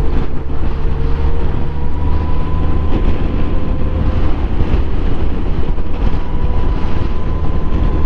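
Suzuki Bandit motorcycle riding at a steady speed: engine running under a steady rush of wind and road noise, with a faint whine held at one pitch.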